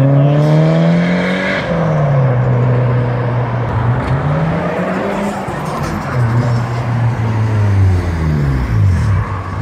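Tuned Japanese cars' engines accelerating away, the engine note climbing and dropping through gear changes: a climb in the first second or so, another about halfway through, and a fall near the end.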